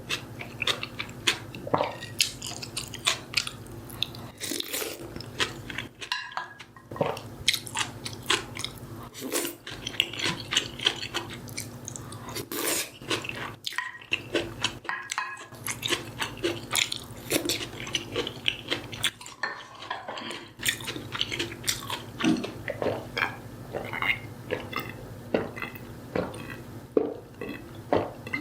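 Close-miked eating: a person biting and chewing food, with many small irregular mouth clicks and crunches and occasional clinks of cutlery on dishes, over a steady low hum.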